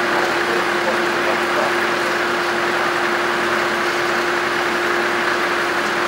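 Tractor running a Tajfun forestry winch, its engine running steadily at a constant speed with an unchanging hum.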